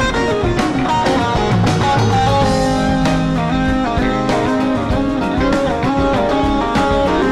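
Live band playing an instrumental passage: electric guitars, electric bass, keyboards and drum kit, with moving melodic lines over a steady beat.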